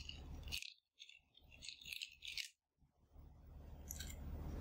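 Faint rustling and crackling handling noise in two short bursts, then a low hum that grows steadily louder over the last second and a half, with a few light clicks near the end.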